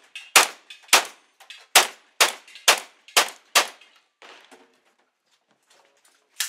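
Rapid handgun fire: seven shots about half a second apart over the first four seconds. Then a pause with faint handling noise, and a single shot from an AR-style rifle right at the end.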